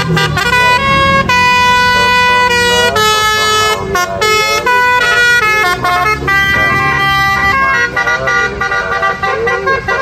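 Bus telolet horn: a coach's multi-trumpet air horn playing a tune, its notes jumping quickly from one pitch to the next in the first half and held longer, as chords, in the second half.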